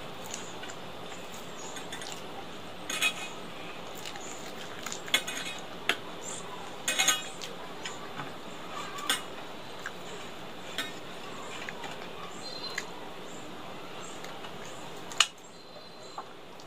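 Fingers and finger rings scraping and tapping on a stainless steel plate as rice is gathered and mixed by hand, with scattered sharp metal clinks, the loudest about fifteen seconds in, over a steady background hiss.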